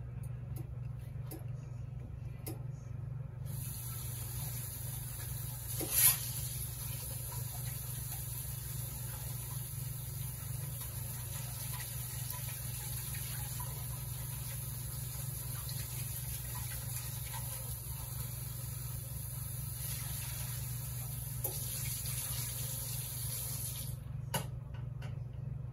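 Kitchen tap running, a steady hiss of water that starts a few seconds in and stops abruptly near the end. A sharp knock about six seconds in is the loudest sound.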